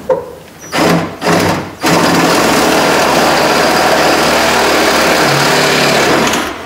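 Hand-held power drill with a half-inch bit drilling out a window regulator rivet in a car door: two short bursts, then a steady run of about four and a half seconds that stops near the end.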